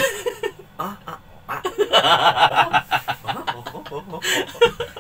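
Laughter, at its loudest and most rapid between about two and three and a half seconds in.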